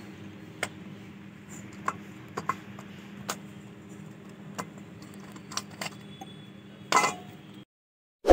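Chunks of multani mitti (Fuller's earth clay) being snapped and crumbled by hand over a steel bowl: scattered sharp cracks and pieces clinking on the metal, over a steady low hum. A louder crunch comes about seven seconds in, then the sound cuts off abruptly.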